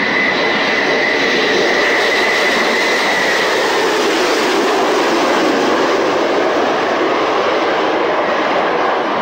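BAC Concorde's four Olympus 593 turbojets, loud and steady as the aircraft passes low overhead with its undercarriage down, with a high whine that fades out about three seconds in.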